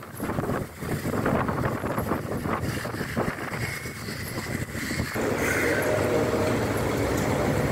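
Wind buffeting the microphone; about five seconds in, a steady motor hum sets in.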